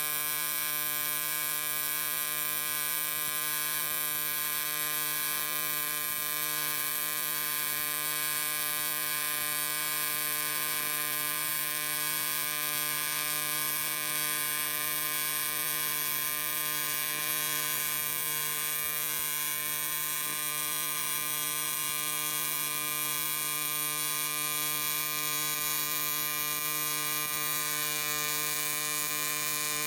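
AC TIG welding arc on aluminum plate, run at about 160 A, giving a steady electric buzz with many overtones and a hiss, holding even throughout.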